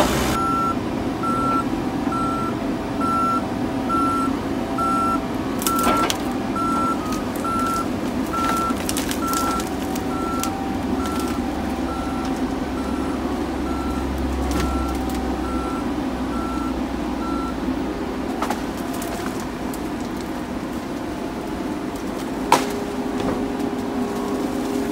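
Wheeled forestry harvester running under load as its head handles a log, its diesel engine and hydraulics giving a steady rumble. A backup alarm beeps evenly, about one and a half beeps a second, and stops about two-thirds of the way through; a few sharp knocks are heard, the loudest near the end.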